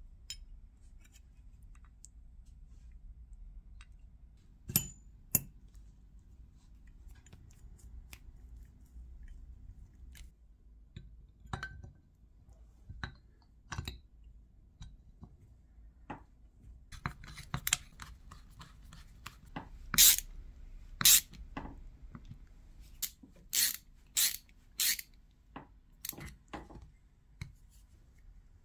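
Brass gears, steel shafts and a brass frame plate of a Babcock milk-fat tester's gear train being fitted together by hand: scattered small metallic clicks and clinks, with a run of sharper, louder clicks in the second half.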